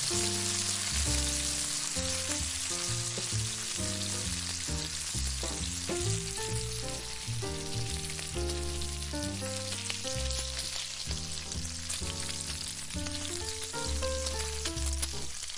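Bacon sizzling and frying in a pan, a dense steady crackle, with background music of held, changing bass and melody notes underneath.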